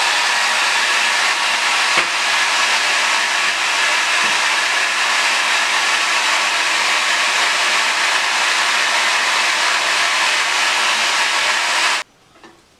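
Hair dryer blowing steadily, heating scrambled eggs in a pan. It is switched off abruptly near the end.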